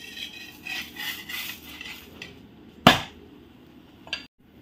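Cooking utensils handled at an iron tawa: faint handling noise, then one sharp knock nearly three seconds in, as a metal spatula strikes the griddle, and a small click near the end.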